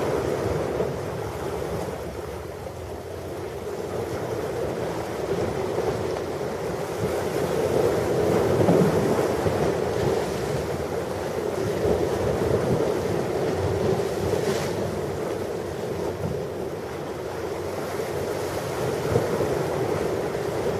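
Ocean surf washing onto a beach, a steady rush that swells and eases, loudest about midway through, with wind buffeting the microphone.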